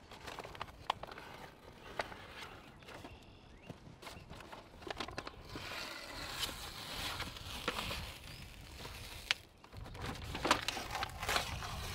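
Release paper crinkling and rustling as it is peeled off self-adhered stretch flashing tape, with hands smoothing and pressing the sticky tape down, and scattered small clicks and taps.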